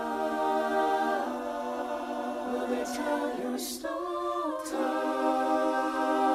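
Musical-theatre ensemble singing a cappella, holding long sustained chords that shift a few times, with a couple of short hissing breath or 's' sounds near the middle.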